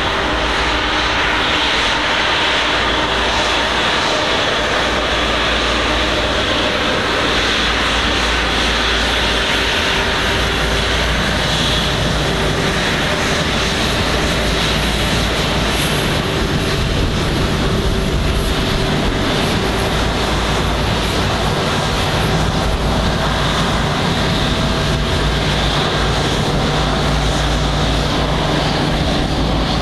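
A Boeing 777-200ER's twin Rolls-Royce Trent 895 turbofans running at taxi power as the jet rolls past: a steady jet rumble with a constant whine in it.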